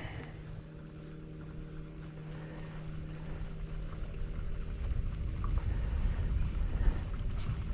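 Wind rumbling on the microphone in an open boat, over a steady low hum that fades out about halfway through.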